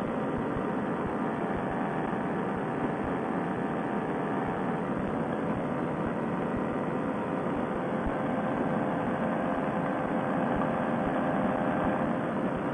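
Paramotor trike's two-stroke engine (Fresh Breeze Monster) and propeller running steadily at cruise power in flight, mixed with rushing airflow: a constant drone.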